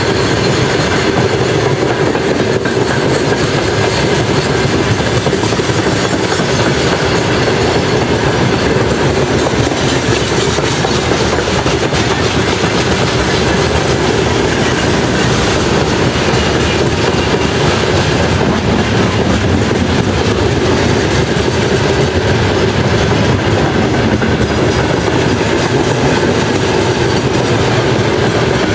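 Freight train's open-top gondola wagons rolling past close by, their wheels running over the rail joints in a steady, loud rush of rail noise.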